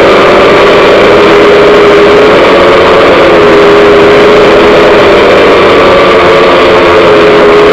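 DJI F550 hexacopter's electric motors and propellers humming steadily and loudly, right next to the microphone, over a rushing noise from the prop wash. The hum's pitch drifts slightly up and down as the flight controller adjusts the motor speeds to hold its hover.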